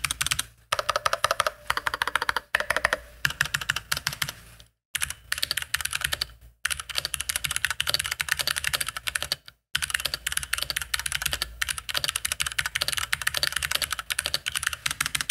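Fast typing on an ASUS ROG Falchion mechanical keyboard with Cherry MX Red switches: a dense clatter of key strokes, very loud, broken by a few short pauses.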